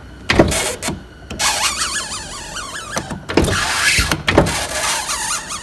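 Power window of a 1996–2000 Honda Civic moving on a worn-out window regulator: the motor runs with a wavering squeal and scrape, broken by several sharp clunks. The sound is the sign of a failing regulator, which the owner calls just terrible.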